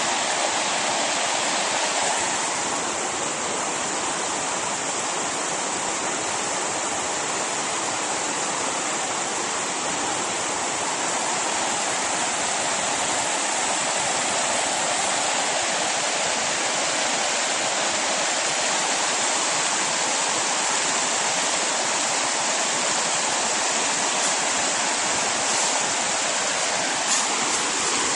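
Whitewater rapids of a rocky river rushing steadily over and between boulders.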